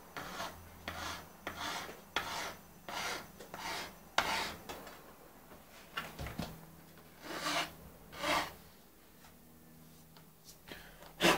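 Hand file rasping along the edge of a MacBook Pro's aluminium unibody casing to soften its sharp edge, in short strokes about two a second, then a few slower strokes before pausing. A sharp tap near the end.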